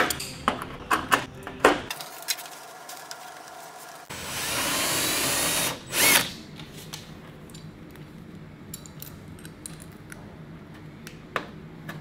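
Cordless drill boring a hole through a fiberglass fender flare, its rubber gasket and the steel fender, running steadily for about a second and a half, with a second short burst just after. Before it, sharp metallic clicks of clecos being set with cleco pliers.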